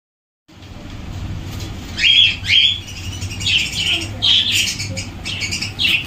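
Caged cockatiels and budgerigars calling: a run of short, sharp calls sweeping up and down in pitch, loud from about two seconds in, over a low steady rumble.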